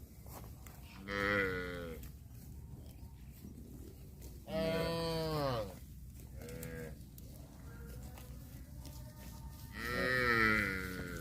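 Cattle mooing: four calls, one about a second in, a longer one around the middle that drops in pitch at its end, a short one right after it, and another near the end.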